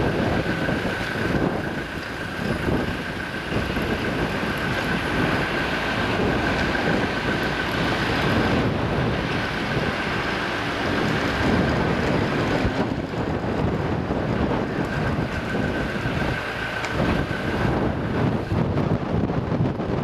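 Wind buffeting the microphone in gusts, with a steady high-pitched whine over it that drops away for a while past the middle and comes back.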